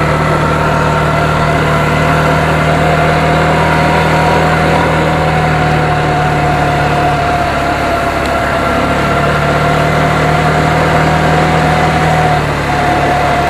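A motor vehicle's engine running steadily and loudly, with a constant whine above its low hum.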